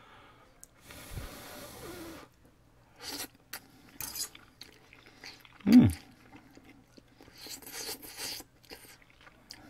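A person slurping and chewing udon noodles in several short bursts, with a brief low falling hum of approval, the loudest sound, a little before six seconds in.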